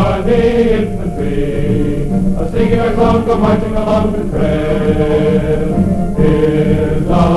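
Film score music: a slow run of long held chords, changing every second or so.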